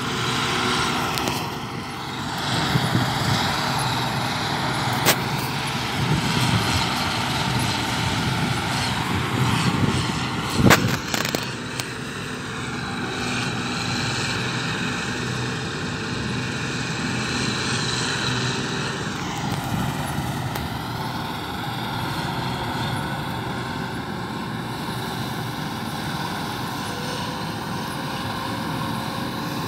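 Combine harvester running steadily as it cuts the crop: an even mechanical drone with several steady tones, its pitch shifting slightly about two-thirds of the way through. Low uneven rumbles and two sharp knocks in the first half.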